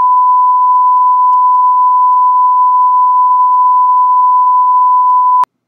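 TV test-pattern tone: one steady, loud electronic beep at a single pitch, held for several seconds and cut off abruptly near the end.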